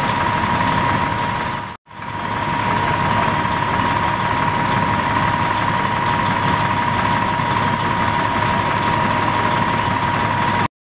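Fire engine running steadily with a constant high whine over the engine noise; the sound drops out briefly about two seconds in and cuts off near the end.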